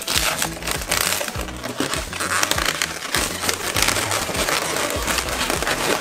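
Latex modelling balloons squeaking and rubbing against each other as hands twist and lock them together, over background music.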